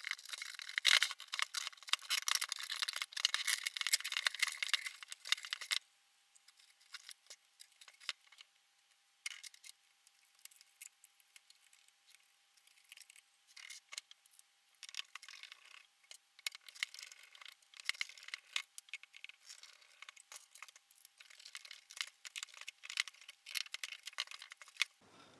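A hand screwdriver turning screws out of a Grundig speaker cabinet and its driver: a dense run of small creaking clicks for about the first six seconds, then scattered clicks, and another run of clicks over the last ten seconds.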